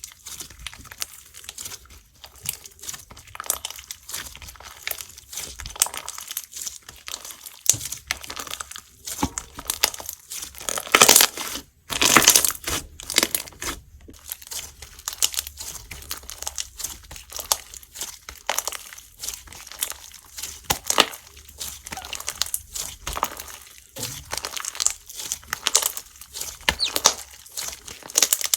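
Hands squishing and stretching Simbly Slime's strawberry-milk slime, giving a dense run of small crackling pops and squishes, with the loudest bursts about eleven to thirteen seconds in.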